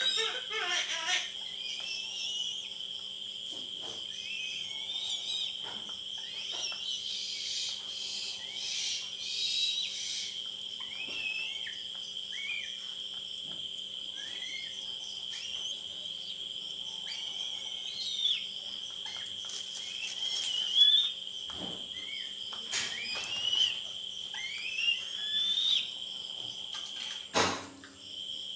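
A young eagle's short, rising whistled calls, repeated every second or two, over a steady high-pitched whine. There are a few sharp knocks, the loudest near the end.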